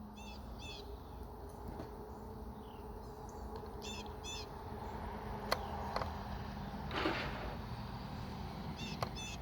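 Outdoor background with a bird giving short chirping calls in pairs, now and then, over a steady low hum. A few sharp clicks fall in the second half, with a brief rustle about seven seconds in.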